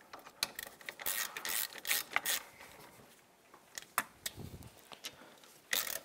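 Short metallic clicks and rasps as the small shield and its cover bolts are fitted back by the front brake caliper of a Honda Rancher 420 ATV: a busy run of clicks in the first couple of seconds, a few more about four seconds in, and a louder rasp near the end.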